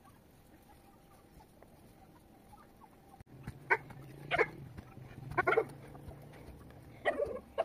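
Chickens clucking in a few short calls, starting a little after three seconds in, over a low steady hum; the first three seconds are faint.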